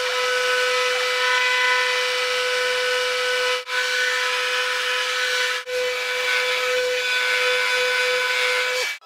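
Electric random orbital sander with dust extraction running steadily on wood: a constant whine over a hiss. It breaks off briefly twice and stops just before the end.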